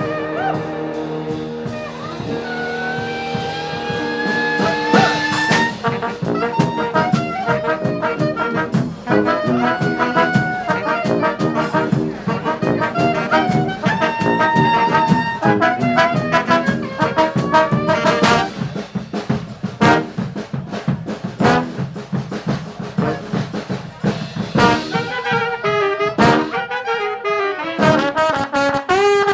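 Live brass band with drums playing an up-tempo tune. It opens on held horn chords with a slow rising slide, then moves into busy horn lines over a steady drum beat, with a cymbal-like crash about two-thirds of the way through.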